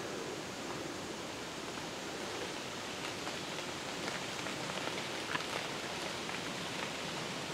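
Steady rustling hiss of the woodland background, with a few faint clicks about halfway through.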